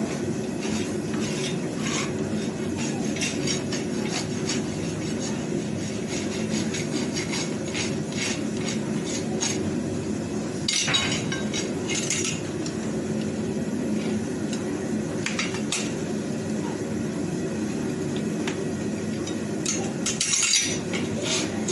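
Farrier's steel hand tools working on a horse's hoof and shoe: irregular sharp metallic clinks and taps, bunched more thickly about halfway through and near the end, over a steady low hum.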